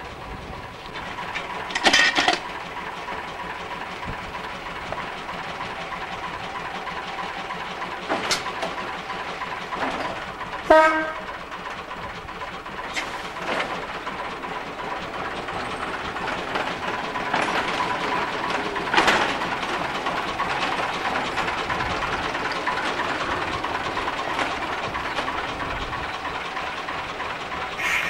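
Small narrow-gauge diesel locomotive's engine running steadily, with several sharp clanks and knocks over it.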